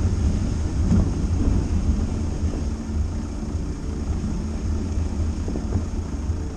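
Dacia Duster driving off-road: a steady low rumble of engine and tyres on rough ground, with a few small knocks and rattles.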